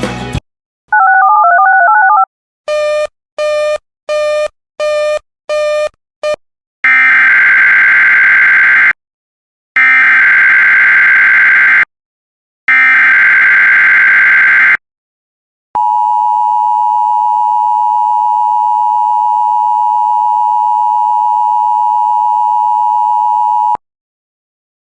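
Emergency Alert System broadcast tones: a short warbling two-note figure and six quick beeps, then three screeching SAME header data bursts of about two seconds each, followed by the steady two-tone EAS attention signal held for about eight seconds and cutting off sharply.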